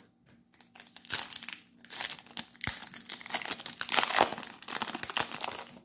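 Foil wrapper of a trading-card booster pack being torn open and crinkled in the hands: an irregular crackling rustle.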